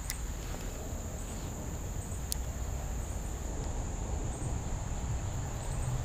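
Steady high-pitched cricket chorus over a low rumble, with a single sharp click about two seconds in.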